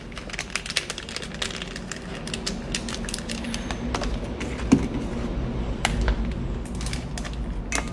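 Close-up eating sounds: scattered sharp clicks and crisp crunches of someone chewing a mouthful of rice with crunchy dried radish, over a steady low hum.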